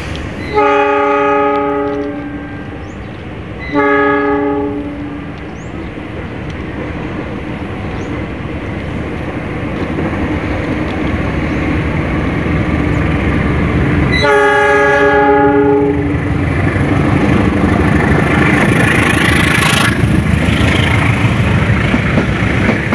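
Diesel locomotive hauling a passenger train sounds three blasts on its multi-tone horn as it approaches: two in the first five seconds and another about fourteen seconds in. Under them the rumble and wheel clatter of the train grows louder as it runs past close by.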